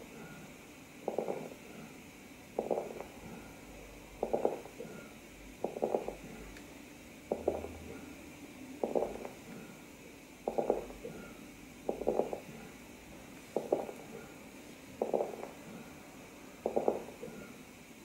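Crepitation heard through a stethoscope: a short burst of fine crackling late in each inspiration, coming back about every second and a half over a steady hiss. It is the sign of alveoli holding a small amount of fluid, their walls stuck together and separating with difficulty at the end of inspiration.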